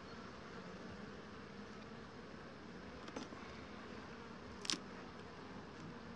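Honeybees buzzing steadily around an open Dadant hive, a faint even hum. A light click about three seconds in and a sharper click near five seconds, from the metal hive tool on the wooden frames.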